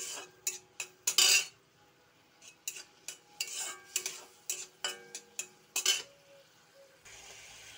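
Metal spatula scraping and clinking against a metal kadai in quick, irregular strokes while stirring paneer curry, one longer, louder scrape about a second in. Near the end a steady sizzle of the curry frying sets in.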